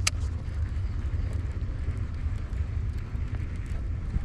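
Wind buffeting the microphone: a steady, uneven low rumble, with a brief sharp swish right at the start.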